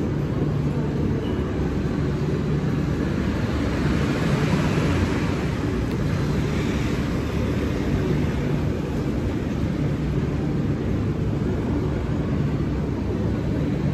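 Steady low rumble and hum of urban background noise, with a hiss that swells for a few seconds near the middle.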